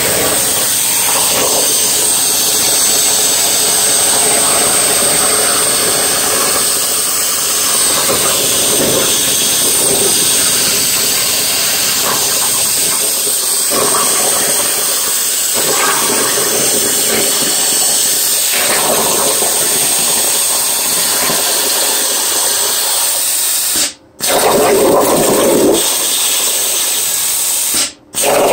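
Plasma cutting arc on a Langmuir Crossfire CNC plasma table hissing steadily as it cuts 18-gauge sheet steel. The arc cuts out for a moment twice near the end, between cuts, then starts again.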